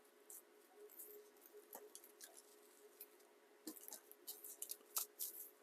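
Near silence with faint, scattered crackles and ticks, more of them in the second half: dried-out, disintegrating foam around a TV picture tube's glass being handled.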